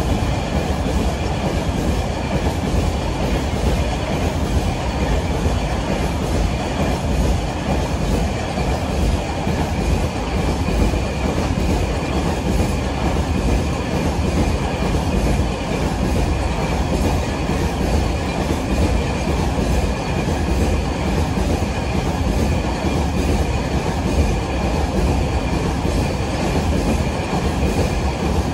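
Long freight train of container-carrying flat wagons rolling past close by: a steady, loud rumble of steel wheels on the rails, with a thin steady high-pitched wheel squeal over it.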